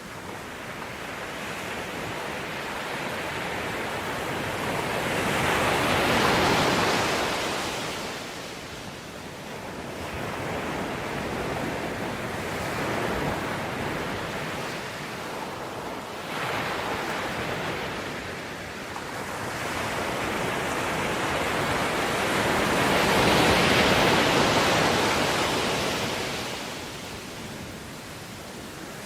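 Ocean waves breaking on shore, a steady wash of surf that swells and fades in slow surges, loudest twice, once about a quarter of the way in and once near the end.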